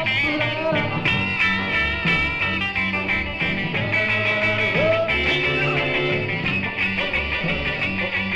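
Instrumental break of an early-1960s vocal-group rhythm and blues record played from a 45 rpm single: a band with a steady beat and a lead instrument carrying the melody.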